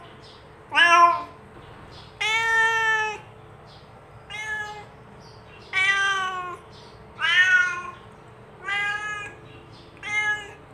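Domestic cat meowing over and over, about seven meows roughly a second apart. Most arch up and down in pitch, and the second is longer and more drawn out.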